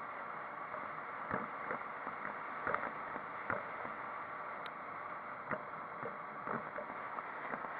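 Steady road noise of a moving vehicle, with scattered small knocks and rattles.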